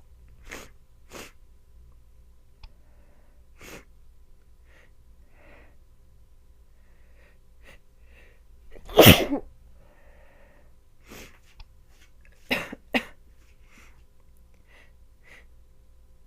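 A woman with the start of a head cold sneezing once loudly about nine seconds in, with short breaths and sniffles before it and two shorter sharp bursts a few seconds later.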